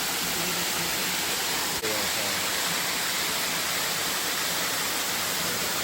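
Steady rush of falling water from a waterfall, an even hiss with no change in level.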